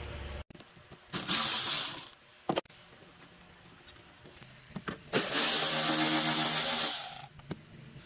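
Small power tool running in two bursts, about a second and then about two seconds long, with a sharp click between them, while the coolant reservoir is being unbolted.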